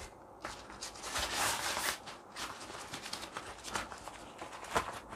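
Handling noise from a small folded aluminium tripod-selfie stick: rustling, heaviest from about one to two seconds in, with a few light clicks and knocks near the end.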